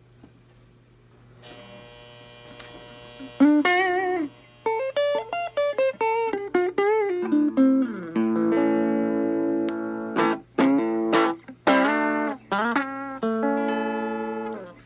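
1964 Fender Telecaster electric guitar played through an amp, a test noodle after its control panel was replaced. It starts with a held chord, moves into single-note lines with string bends and vibrato, then strummed chords.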